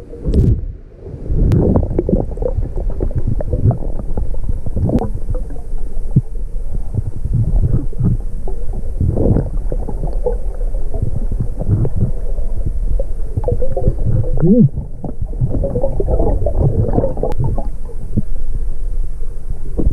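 Muffled underwater rumbling and gurgling, with the bubbling of a diver's exhaled breath from a hookah regulator.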